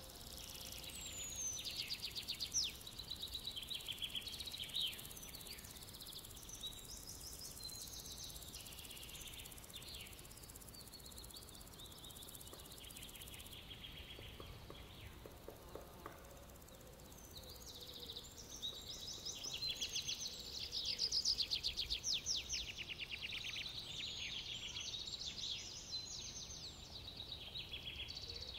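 Birdsong: several small birds chirping and trilling over a faint steady hiss, busier in the second half.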